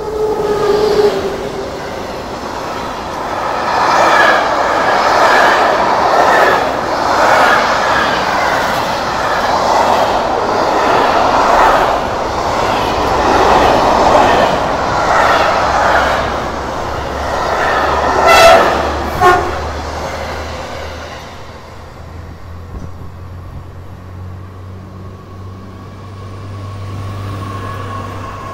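SNCF BB 26000 electric locomotive hauling an intermodal freight train of container and tank-container wagons past at speed, with a short horn note at the start. The wagons' wheels clatter rhythmically, with two sharp knocks about two-thirds of the way through. After the train clears, the lower hum of an approaching TER regional train rises.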